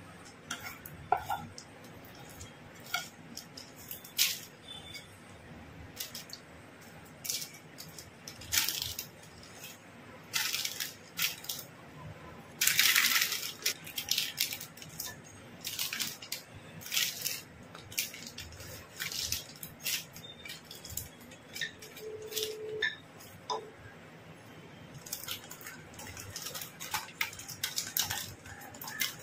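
Kitchen handling sounds made by a run of separate taps, scrapes and crinkles. First a wooden spatula works a sticky sesame-and-jaggery mixture in a nonstick pan. Then the baking paper rustles as the mixture is rolled flat with a wooden rolling pin, with the longest rustle about thirteen seconds in.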